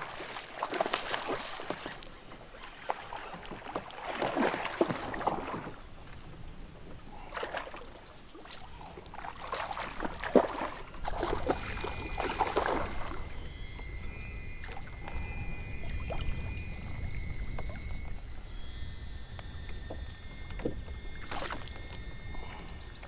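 Water splashing in several bursts as a hooked bass thrashes at the surface and is reeled in beside a kayak, the sharpest splash about ten seconds in.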